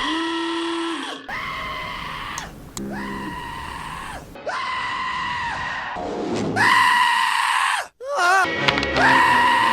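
Cartoon sound effects cut back to back: the same pitched sound, sliding up at its start and down at its end, repeated about six times, each about a second long. Near eight seconds a quick warbling wobble breaks in.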